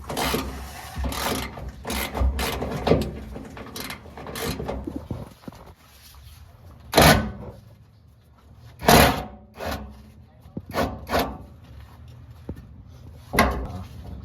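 Hand work on a vehicle fuel tank: irregular scraping and rubbing with scattered knocks, the loudest four falling in the second half.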